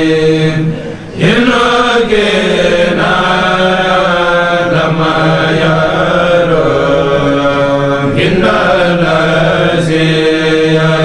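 A Mouride kourel, a group of men, chanting a xassida (Sufi devotional poem) together with no instruments, their voices holding long drawn-out notes. The chant dips briefly about a second in, where the group takes a breath.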